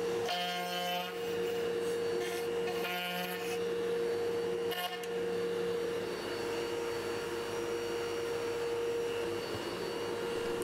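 Table-mounted router running steadily while its cutter routes a control cavity into the back of a solid guitar body, guided by a template. The cutter bites harder in short spells about half a second in, around three seconds and around five seconds, adding a higher whine over the motor's steady note.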